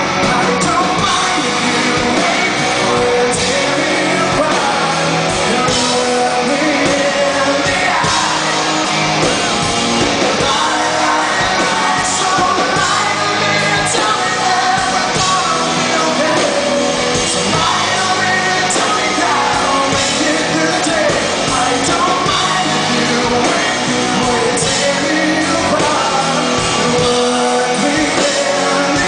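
Live rock band playing with a singer, heard in a large hall.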